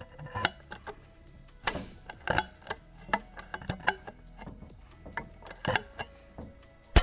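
Blind rivet tool setting a tri-folding Moly rivet in aluminum: a string of irregular clicks as the tool is worked stroke by stroke, ending in a loud sharp snap near the end as the mandrel breaks off and the rivet's legs fold out.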